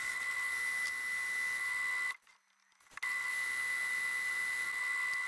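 Metal lathe running with a steady high-pitched whine while a single-point tool cuts a thread on a bogie pin. The sound drops out for about a second midway, then resumes the same.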